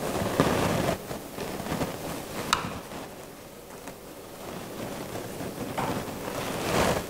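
Close-miked handling of soft pumpkin leaves as they are folded around food into ssam wraps: soft rustling and wet handling noises, loudest at the start and again near the end, with one sharp click about two and a half seconds in.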